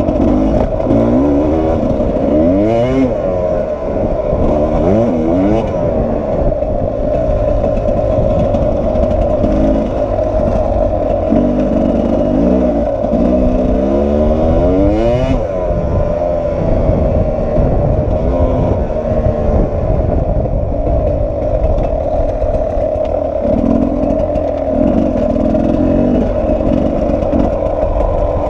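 Sherco 300 SE-R two-stroke enduro motorcycle engine running under way, its revs repeatedly climbing and dropping as the rider throttles and changes gear. The revs rise most sharply a few seconds in and about halfway, each climb cut off abruptly.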